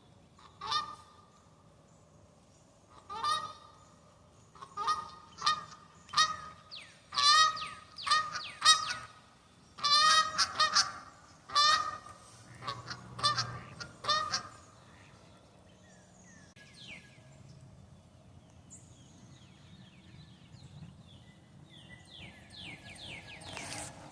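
Waterfowl calling: loud calls, singly and in quick runs, for the first fourteen seconds or so, then only faint, scattered calls.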